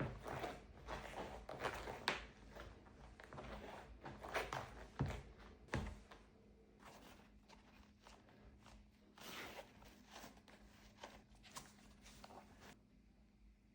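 Faint handling noises from a shoebox and a new pair of running shoes being unpacked: irregular rustling and soft knocks that stop shortly before the end, over a low steady hum.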